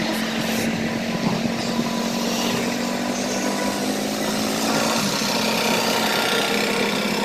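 TVS Raider 125's single-cylinder engine running at cruising speed, with wind rushing on the microphone. Its steady note shifts about five seconds in.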